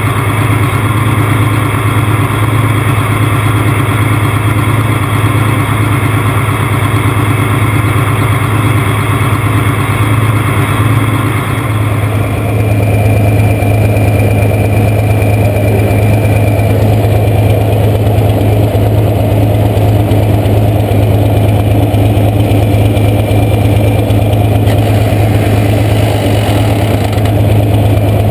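International 1066 tractor's diesel engine idling steadily, heard close up. Its tone shifts about twelve seconds in, turning duller and heavier.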